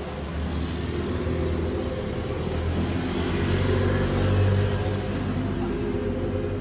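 A motor vehicle's engine running close by, swelling to its loudest about four and a half seconds in and then easing off.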